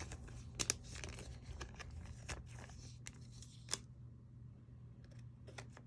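Trading cards being handled and flipped through by hand, with a few sharp card snaps and light rustles at irregular moments over a low steady hum.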